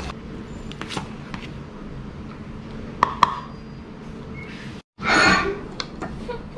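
Light clicks and clinks of kitchenware over a steady low hum, with two sharp clicks close together about three seconds in. After a brief dropout there is a short, louder burst of rushing noise.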